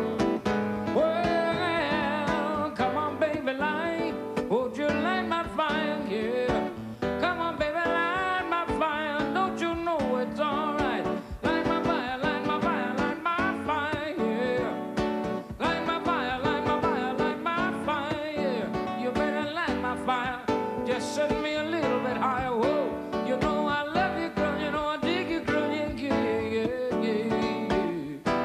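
Acoustic guitars playing an instrumental passage, a run of quick picked notes over chords, with some notes wavering in pitch.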